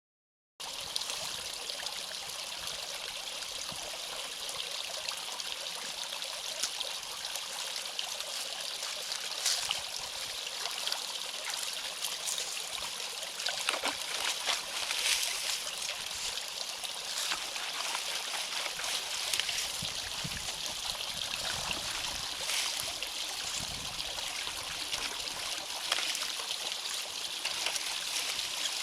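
Water running and trickling steadily through a beaver-dammed drainage ditch culvert, with a few short splashes or knocks now and then. It begins about half a second in.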